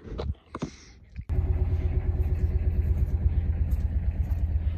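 Narrowboat's old diesel engine idling with a steady, rapid low chug, cutting in abruptly about a second in. A few short knocks come before it.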